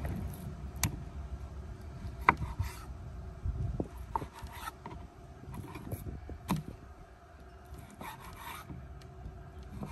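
Chef's knife cutting raw chicken breast on a wooden cutting board: the blade scraping and tapping on the board at irregular intervals, with the sharpest tap a little over two seconds in.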